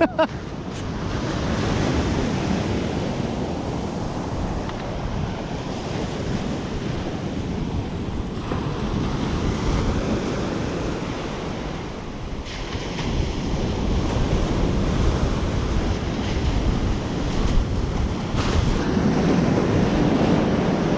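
Surf breaking and washing up a sandy beach, swelling and easing every few seconds, with wind buffeting the microphone.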